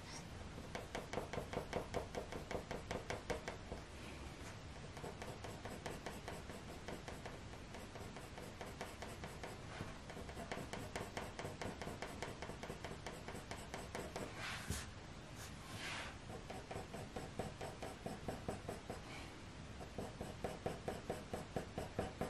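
Faber-Castell Polychromos coloured pencil scratching on paper in rapid short strokes, several a second, laying in fur texture. A couple of louder, longer scratches come about two-thirds of the way through.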